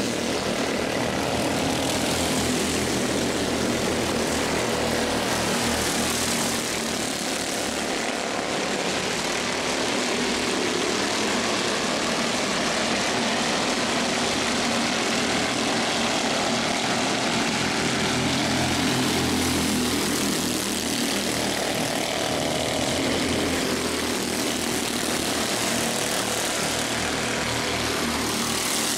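A field of CEMCA Mini Cup race cars running on the oval, their small engines droning steadily together and swelling and easing as cars pass.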